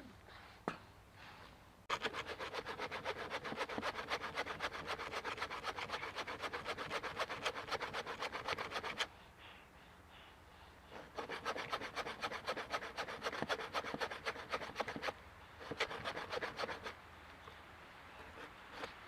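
Large 30-inch hand saw cutting into a thick log with rapid back-and-forth strokes, in three spells with short pauses between: the longest from about two seconds in, another from about eleven seconds, and a short one near the end.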